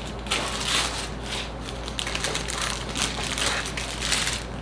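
Packaging being handled and unwrapped: an irregular run of crinkling and crackling.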